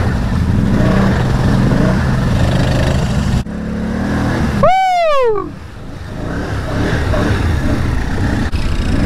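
Can-Am Outlander ATV engine running under throttle through mud ruts, with a rider's falling "woo!" shout about five seconds in.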